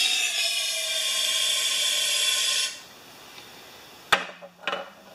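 Aerosol can of starting fluid sprayed into the carburetor throat of a Tecumseh engine: a loud steady hiss for about two and a half seconds, with faint whistling tones that slide downward in pitch, then it stops. Two sharp knocks follow about four seconds in.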